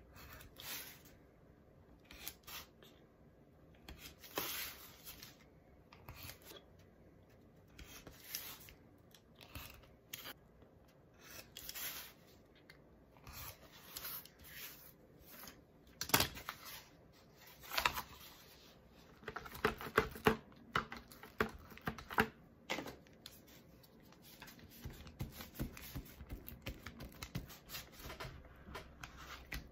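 Utility knife slicing through paper on a cutting mat, a series of short separate cuts with sharper clicks in the middle. Toward the end, paper crinkles and rustles as the trimmed covering paper is folded over the book boards.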